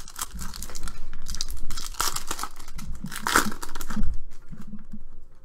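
Foil wrapper of a basketball trading-card pack crinkling and tearing as it is pulled open by hand: irregular crackling, loudest about two and three and a half seconds in.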